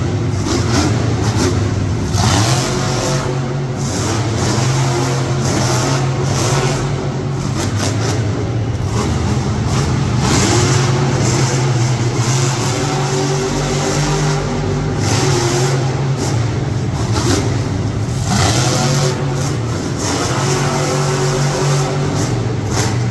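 A loud motorsport engine running under heavy throttle, revving up and down over and over on top of a steady low drone.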